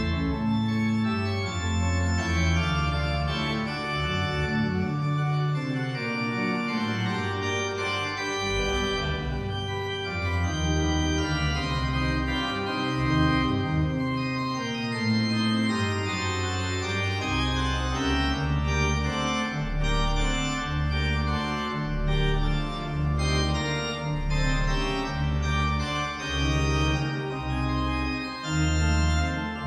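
Church pipe organ playing a slow piece in sustained chords. Deep pedal bass notes join in a little over halfway through.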